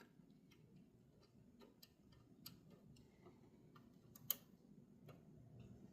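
Faint scattered small clicks and ticks of plastic parts of a car radio display assembly being handled and pushed into place, with one sharper click about four seconds in.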